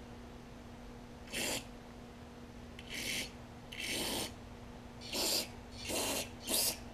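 Aerosol carburetor cleaner sprayed through its straw into the ports and passages of a small-engine carburetor in six short hissing bursts, flushing out debris.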